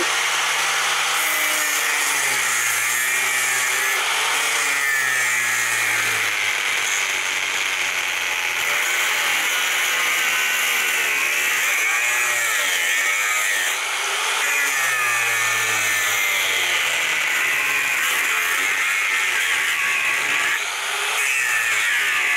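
Corded angle grinder cutting through one end of a small transformer clamped in a vise. It runs at steady full speed, its pitch wavering as it is pressed into the cut, with brief easings of load about 14 and 21 seconds in.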